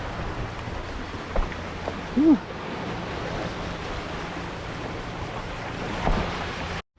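Sea waves washing steadily, with wind buffeting the microphone. About two seconds in, a short hum-like tone rises and falls, and the sound cuts off abruptly just before the end.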